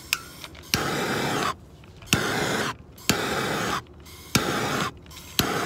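Handheld gas torch fired in five short bursts of hiss, each opening with a sharp click, as it heats and shrinks the heat-shrink butt connectors on the trailer's electric brake wires.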